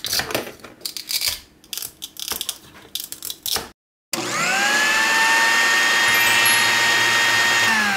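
A plastic toy knife cutting cuttable toy fruit on a plastic cutting board makes a series of irregular clicks and rasps. After a brief break, a battery toy blender's small motor whirs: its whine rises as it spins up a little past halfway, holds steady, and starts to wind down near the end.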